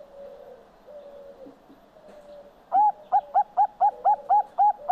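Zebra dove cooing: soft low coos at first, then a quick run of about nine short, loud staccato coos, about four a second.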